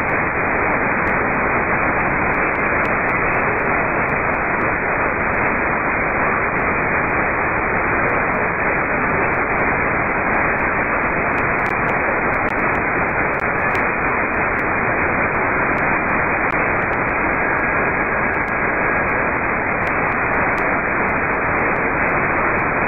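Shortwave radio receiver tuned to the 10-metre amateur band near 29.45 MHz, giving a steady hiss of band noise with no station on the frequency. A faint steady whistle comes in for a couple of seconds in the second half.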